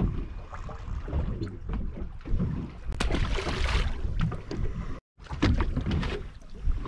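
Wind rumbling on the microphone aboard a small boat, uneven and gusty, with a sharp knock about three seconds in. The sound cuts out completely for a moment about five seconds in.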